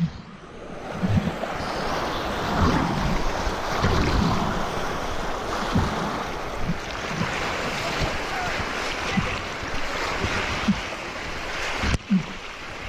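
Rushing whitewater of a river rapid, with irregular low thumps of water and wind buffeting the camera. The sound briefly drops out near the end.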